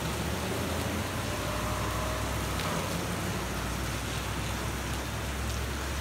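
Steady heavy rain falling on pavement, with a low steady hum underneath.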